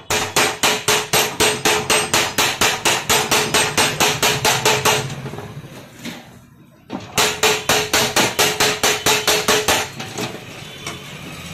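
Pliers tapping rapidly on a gas stove's cast burner head, about five sharp metallic strikes a second with a ringing note. The tapping stops a little before halfway, then resumes about two seconds later. The burner is jammed.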